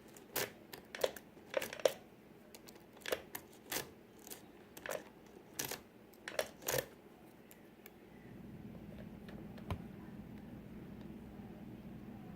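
Sharp metallic clicks and rattles of lock-picking tools and the lock's pins working in a custom five-pin tumbler lock that he feels has something stuck inside, coming about a dozen times at uneven intervals. A steady low hum comes in after about eight seconds, with one more click.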